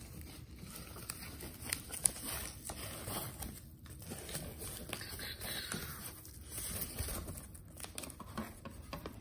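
Foam packing wrap crinkling and rustling as it is pulled open by hand around a stack of plastic graded-card slabs, with scattered light clicks.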